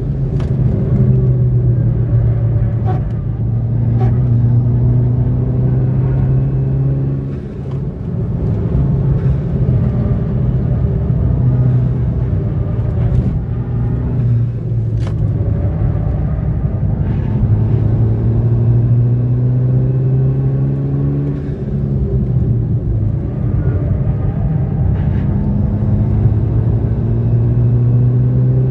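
Skoda Octavia RS engine heard from inside the cabin, driven hard on a circuit: it climbs in pitch under acceleration several times and drops back when the driver lifts for corners, over steady tyre and road noise.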